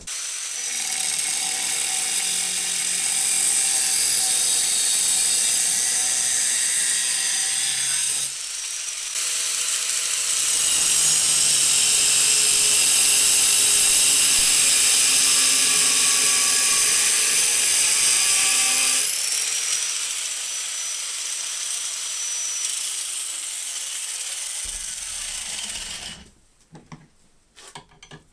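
Electric power tool cutting a metal plate, a high-pitched steady running sound in two long runs with a short break between them. The second run is louder, eases off partway through and stops a couple of seconds before the end.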